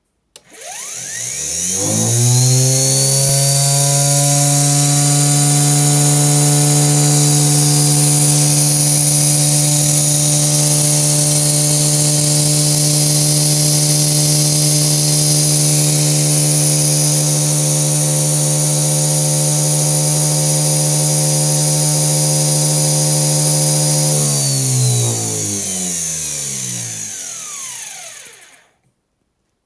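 Bosch dynastarter (starter-generator) of a Deutz T216 small gas turbine running unloaded, freshly fitted with new carbon brushes, armature and ball bearings. It spins up in about two seconds, runs at a steady speed with an even whine and a high hiss, then coasts down over about four seconds near the end, falling in pitch until it stops.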